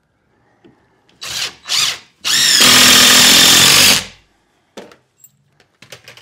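Power drill driving screws into a plywood wall panel: two short trigger bursts, then one longer run of about a second and a half that spins up in pitch as it starts. A few light clicks follow near the end.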